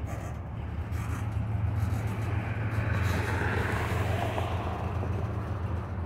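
Freight train of covered hopper cars rolling slowly past: a steady low rumble of steel wheels on rail, with a scraping hiss that swells about halfway through.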